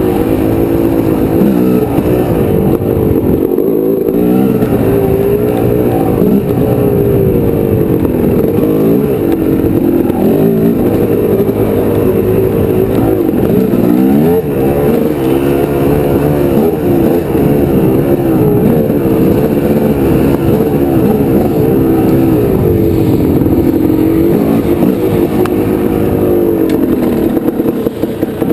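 Honda CR250R two-stroke dirt bike engine being ridden hard, its pitch rising and falling over and over as the throttle is opened and closed.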